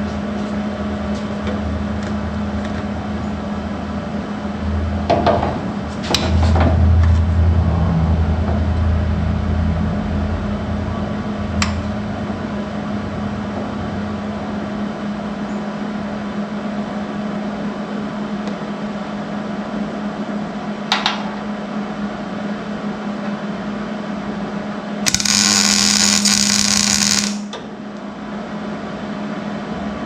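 Electric welder's arc running for about two and a half seconds near the end: a single tack weld fixing the brake pedal assembly bracket to the frame. Before it, a steady shop hum with a few sharp clicks and knocks.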